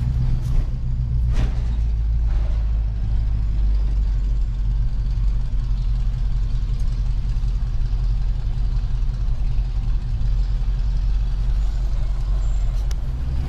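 Pickup truck engine and road noise heard from inside the cab while driving slowly in town: a steady low rumble.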